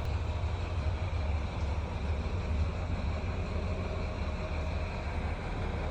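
Steady low background rumble with a faint even hiss, unchanging throughout.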